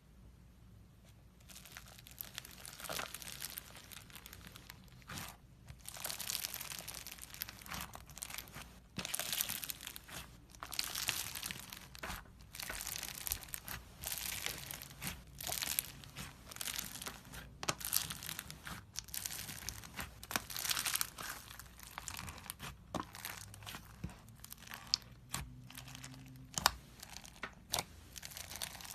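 Slime being squeezed and pressed by hand, giving crinkly crackling with small sharp pops in irregular bursts about a second or two apart.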